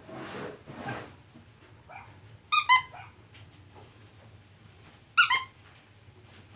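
Rubber squeaky dog toy squeezed: two quick high squeaks about two and a half seconds in, then one more squeak about five seconds in. Soft rustling comes first.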